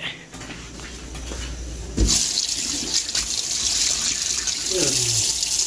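Kitchen tap turned on about two seconds in with a knock, then water running steadily into the sink.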